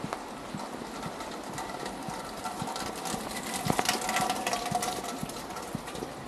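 A car engine runs close by in a narrow cobbled lane, loudest about four seconds in, over footsteps on wet cobblestones.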